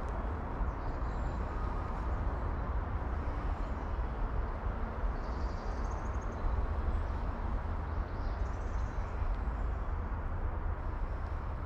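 Steady low outdoor rumble, like wind on the microphone or distant traffic, with a few faint high bird chirps about halfway through and again near the end.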